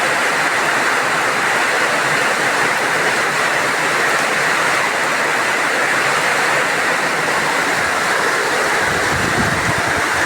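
Heavy rain pouring down in a steady, dense hiss, driven by strong wind. About nine seconds in, a low rumble rises under the rain.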